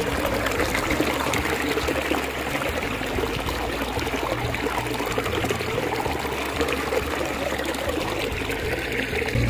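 Shallow stream water spilling over a low ledge into the pool below: a steady pouring and trickling.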